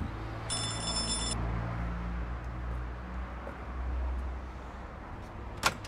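Electric doorbell buzzing once for about a second, over a low traffic rumble that swells and fades. Near the end comes a single sharp click as the front door is opened.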